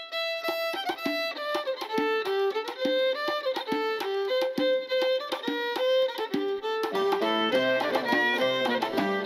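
Background instrumental music: a quick melody of short notes, with lower instruments joining in about seven seconds in.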